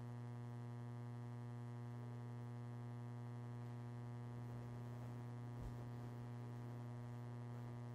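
Steady electrical mains hum with a stack of evenly spaced overtones, unchanging throughout, and a faint low thump a little past halfway.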